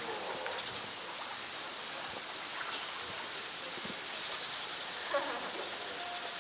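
Steady rushing of running water, with a few faint high chirps about half a second and four seconds in.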